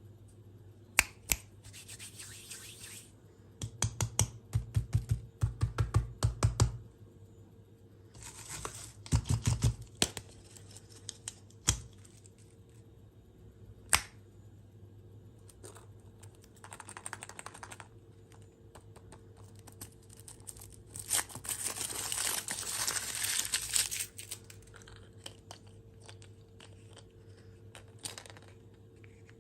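Packaging being torn open and crinkled by hand in several bouts, with sharp clicks and low taps between them.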